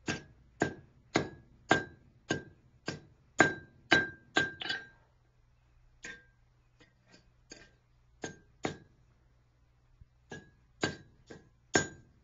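Blacksmith's hammer striking steel on an anvil while forging, about two blows a second, each with a short metallic ring. The hammering breaks off about five seconds in for a few lighter, scattered taps, then picks up again at the same pace near the end.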